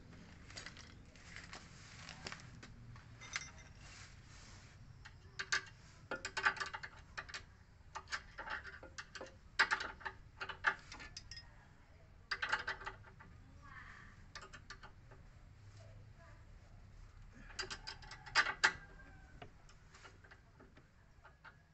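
Wrench clicking and clinking against metal in irregular clusters of short clicks while the nut of a new front stabilizer link on a Ford EcoSport is tightened.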